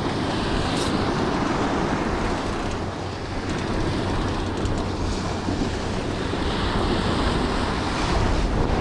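Small ocean waves breaking and washing up a sandy beach, heard as a steady surf wash, with wind buffeting the microphone.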